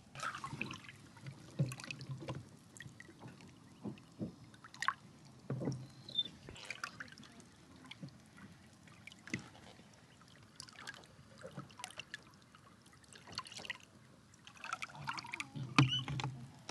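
Water trickling and lapping along a sailboat's hull as it moves under sail, in small irregular splashes and gurgles.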